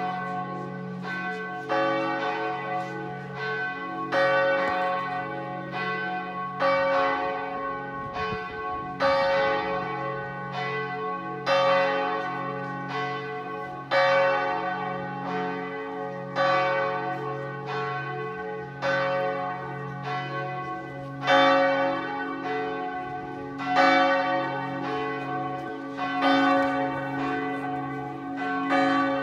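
Several swinging church bells in the tower of the Sint Martinuskerk ringing together. The loudest strikes come about every two and a half seconds, other bells strike in between, and a steady hum of after-tone runs beneath. This is the inluiden, the ringing-in of a service.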